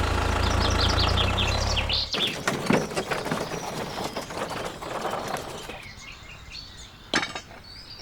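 A small motor running steadily cuts off about two seconds in, with birds chirping over it. Scattered light clicks and knocks follow, with one sharp click near the end.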